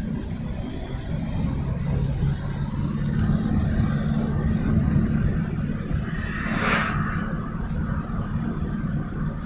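A motor vehicle's engine running with a steady low rumble that swells in the middle, and a short hiss about two-thirds of the way through.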